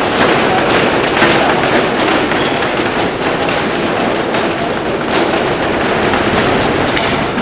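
Many fencers' feet stepping and stamping together on a hard sports-hall floor in a footwork drill: a dense, irregular crackle of footfalls that echoes in the hall.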